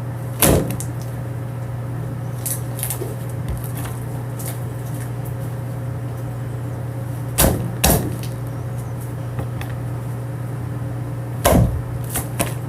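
Steady low electrical hum, with a few sharp pops and clicks from slime being handled: one about half a second in, two close together past the middle, and several near the end.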